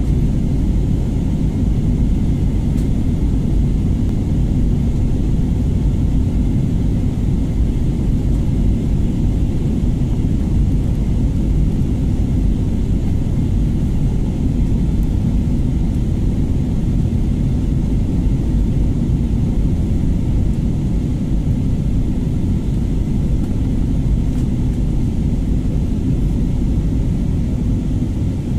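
Steady, even rumble of a jet airliner's engines and rushing air, heard inside the passenger cabin as the plane descends to land.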